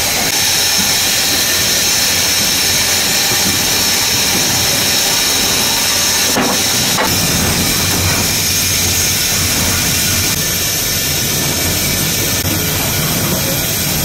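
Steady steam hiss and running noise on the footplate of GNR N2 0-6-2 tank steam locomotive 1744, with two short knocks about six and seven seconds in.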